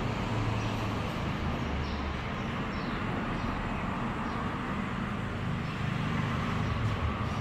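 Steady background rumble and hiss with no clear events, of the kind heard in an ambience with road traffic.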